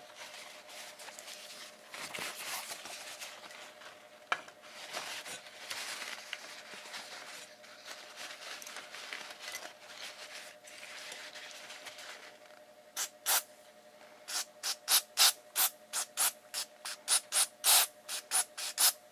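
DeoxIT contact cleaner sprayed from an aerosol can through its red extension straw onto the corroded sliding contacts of a pushbutton switch bank. Uneven hissing squirts run for the first twelve seconds or so, then a quick series of short, sharp squirts, about two a second.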